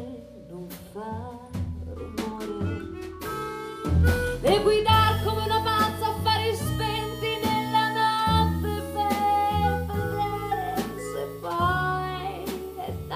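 A woman singing a melody with a small jazz band: double bass and drum kit with cymbal strokes accompany her. The band grows fuller and louder about four seconds in.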